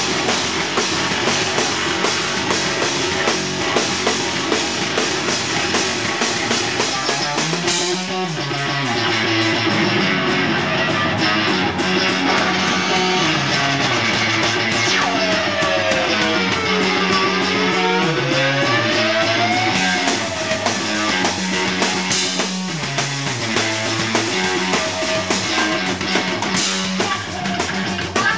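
Live rock duo playing loud: electric guitar riff over a drum kit. Midway through, a tone sweeps down in pitch and back up again.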